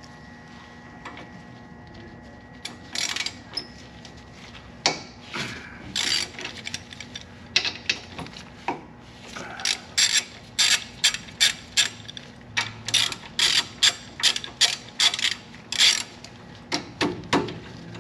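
Hand ratchet wrench clicking as it is worked back and forth to loosen the brake caliper on a Jeep Wrangler. The clicks come a few at a time at first, then in a quick steady run of about two to three a second from about halfway through.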